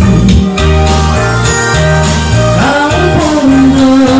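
Karaoke: a man singing into a handheld microphone over a loud backing track with a moving bass line and guitar.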